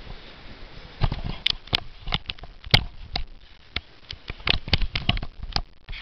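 Irregular sharp clicks and knocks, unevenly spaced, starting about a second in after a faint steady hiss.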